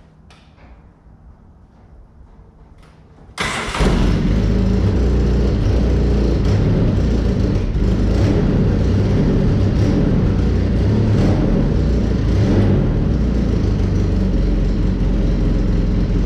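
Polaris Ranger UTV engine on a cold start: after about three seconds of quiet it catches suddenly and runs steadily, very loud.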